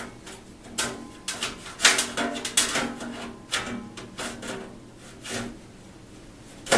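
Corten steel planter panels scraping and knocking against each other as the end panel's slots are worked onto the grooves. A string of short scrapes and clanks, busiest in the first three seconds, quieter near the end, then a sharp knock at the very end.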